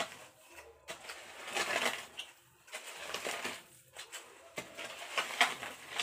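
Shovel scraping and scooping into loose soil and rubble, a few gritty scrapes with sharp clicks of stones between them.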